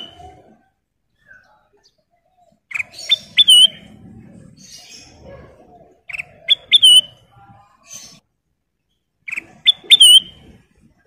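Kutilang emas bulbul calling: three short phrases of a few sharp, whistled notes, each ending in a curling note, about three seconds apart.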